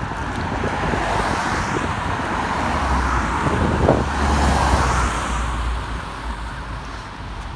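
Road traffic passing, with one vehicle going by close: the tyre and engine noise swells to a peak about halfway through, with a low engine rumble under it, then fades.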